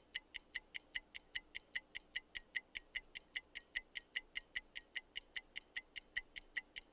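Quiz countdown-timer sound effect: a steady clock-like ticking, about five ticks a second.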